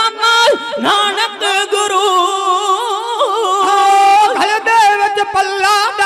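Kavishri singing: men's voices sing loud, long-held notes that waver and bend, in the unaccompanied style of a kavishri jatha.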